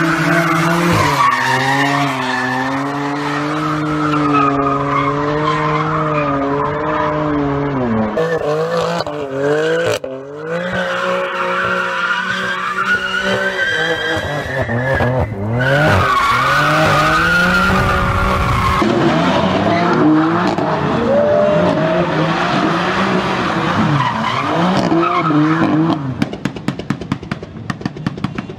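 BMW M3/M4 twin-turbo straight-six engines revving up and down hard while the cars drift, with tyres skidding and squealing, in several clips cut one after another. Near the end the engine stutters rapidly.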